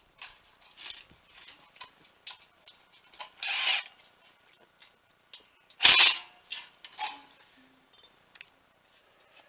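Metal shed parts and fasteners clinking and clanking as they are handled, a run of irregular clicks and knocks, with a louder scrape about three and a half seconds in and a sharp clank about six seconds in, the loudest sound.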